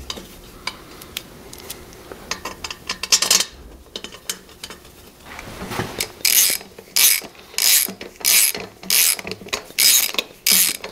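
Hand ratchet clicking in even strokes, about one and a half a second from about six seconds in, running down the bolts on a cast-aluminum manifold of an Isuzu 4BD1T diesel. Before that, scattered light metal clicks and clinks as the manifold and bolts are handled.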